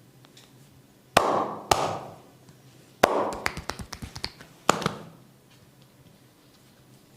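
Massage strikes of the hands on a person's bare back: two sharp slaps, then a quick run of about nine lighter strikes, then one more sharp slap.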